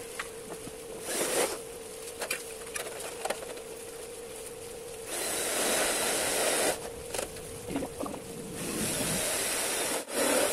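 Power drill driving screws into light-steel frame profile: two whirring, hissy runs of about a second and a half each, about five seconds in and again near the end, with light clicks and taps of handling the metal between them.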